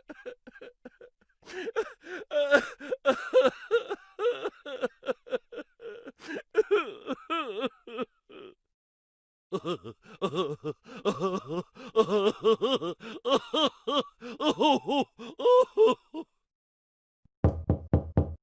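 Comedic vocal sound effect: two long runs of rapid, choppy, pitched voice sounds, with a break of about a second between them. Near the end a short, separate sound heavy in the low range begins.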